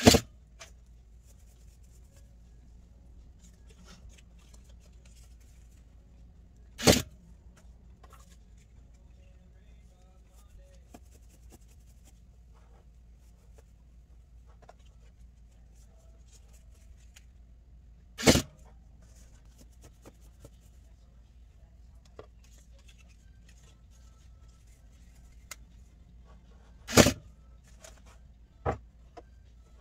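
Four loud, sharp clunks several seconds apart, with a weaker one near the end, over faint rustling of satin fabric being handled.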